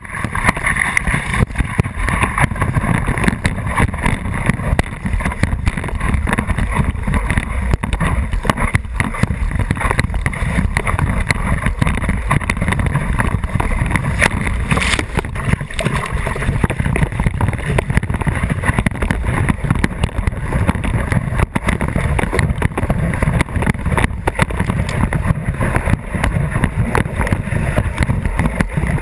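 Water rushing and splashing against a surfboard-mounted GoPro as the board slides across a breaking wave, mixed with wind on the microphone: a steady, loud, low-heavy rumble.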